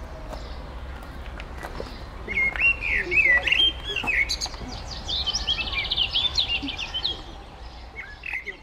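Small birds singing: repeated whistled chirps start about two seconds in, with a fast trill in the middle.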